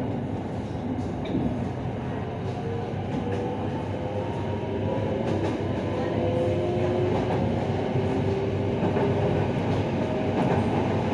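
SRT Red Line electric commuter train running, heard from inside the carriage: steady wheel-and-rail rumble with a faint motor whine rising in pitch as it gathers speed, growing a little louder.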